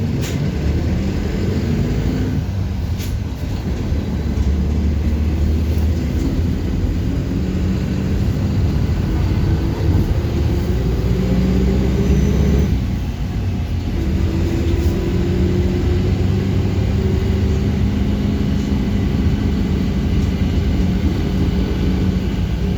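City bus engine pulling away and accelerating, its pitch climbing steadily and dropping briefly twice as the transmission shifts gear.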